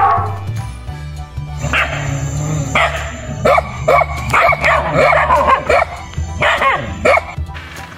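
A dog barking and yipping in a string of short, pitched barks starting about two seconds in, over background music with a steady low drone.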